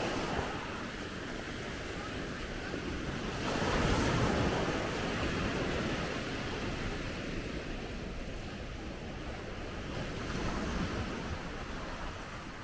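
Sea waves washing onto a beach, with wind buffeting the microphone; the wash swells louder about four seconds in and again near the end.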